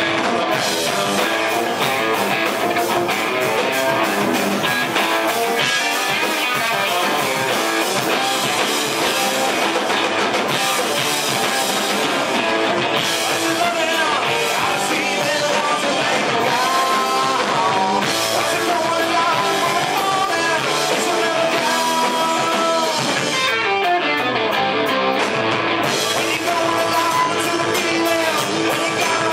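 Rock band playing a song live, with electric guitar and singing.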